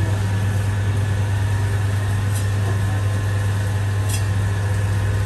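Electric chicken-cutting machine with a circular blade running, its motor giving a loud, steady, even hum. Two faint ticks come about two and four seconds in.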